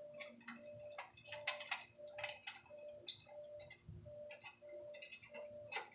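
Irregular metallic clicks and clinks as a tailpipe is fitted into place, over a steady ticking about twice a second.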